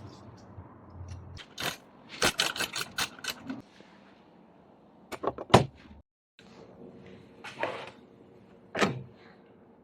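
Sharp metal clicks and knocks in irregular groups, a quick run of about six a little after two seconds in and another cluster around five seconds, as a pair of tin snips and hand tools are handled during restoration.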